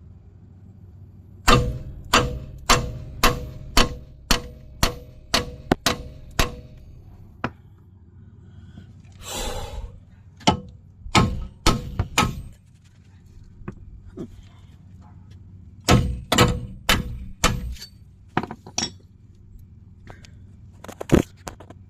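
Hammer blows on a steel front strut as it is driven round into its slot in the steering knuckle. The metal rings with each strike. The strikes come in runs of about two a second with short pauses between, and there is a brief scraping noise about nine seconds in.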